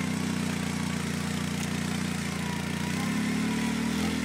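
Polaris RZR side-by-side's engine running at low revs under load as it crawls up a rock ledge, its pitch rising a little about three seconds in.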